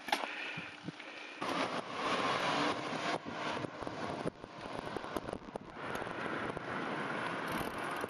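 Mountain bike riding noise: tyres rolling on the road with wind rushing over the microphone, plus a few light rattles. The noise jumps louder about a second and a half in and dips briefly around four seconds as the shots change.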